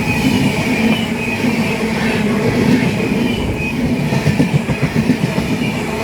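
LHB coaches of an express train running past at speed: a steady, loud rumble of wheels on rail with a faint high squeal. The clatter grows sharper in the second half.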